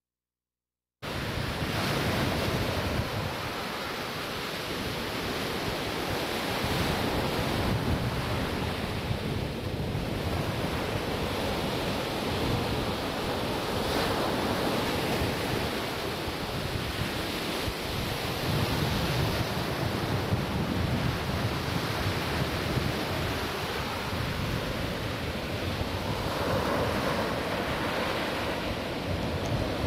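Surf breaking and washing up the beach, with wind buffeting the microphone in a low rumble. The sound cuts in suddenly about a second in.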